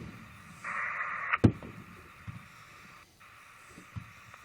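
Fireworks going off: a loud bang with a rumbling tail about one and a half seconds in and another near the end, with smaller pops between. Under them a police scanner hisses steadily, with a louder burst of static just before the first bang.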